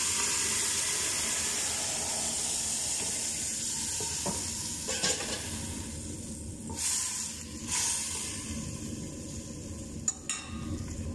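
Hot oily broth in a stainless steel pot sizzling as soaked rice is poured in; the hiss is loudest at first and slowly dies down, with a few light clinks of metal against the pot.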